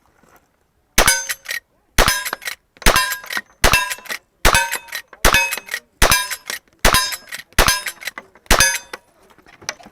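Steel targets clanging, struck about ten times at a steady pace of roughly one hit every 0.8 s, each hit ringing on briefly with a bell-like tone.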